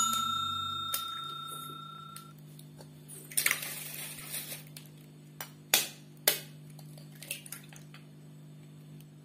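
A stainless steel bowl rings and fades over about two seconds after an egg is knocked on its rim. About three and a half seconds in, eggshell cracks and the egg drops into the bowl of chopped vegetables, and near six seconds two sharp taps sound as the next egg is knocked against the rim, over a faint steady hum.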